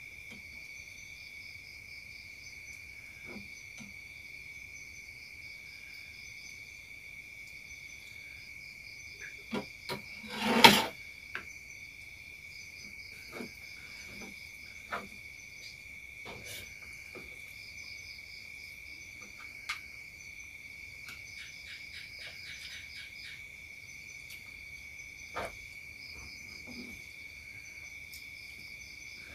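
Steady chorus of crickets and other insects: a constant shrill tone with pulsing chirps above it. Scattered clinks and taps of a spoon on a plate and pot are heard over it, with one louder clatter about ten seconds in.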